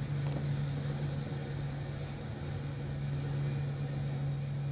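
A steady low hum, even in pitch and level throughout.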